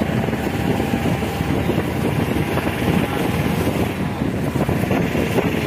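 Engine and road noise of a moving goods vehicle, heard from its open cargo bed, with wind buffeting the microphone; steady and loud throughout.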